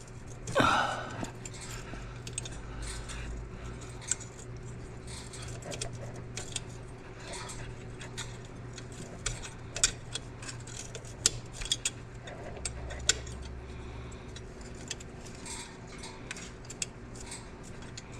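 Scattered metallic clicks and clinks of hand tools working a stuck exhaust clamp nut, over a steady low hum. A brief voice sound comes about half a second in.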